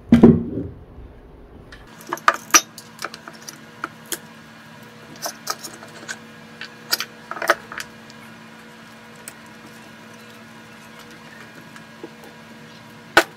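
Light metallic clinks and taps as a sheet-metal battery hold-down bracket is handled and laid on a UPS's lead-acid batteries, scattered through the first half, with one sharp click near the end.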